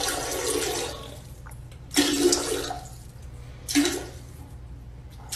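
Water in a toilet bowl splashing as a French bulldog drinks from it with its head in the bowl: a steady rush of water for about the first second, then two short splashes a couple of seconds apart.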